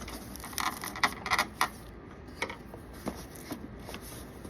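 Small kit parts and packaging being handled: a quick run of light clicks and rustles about a second in, then a few scattered clicks.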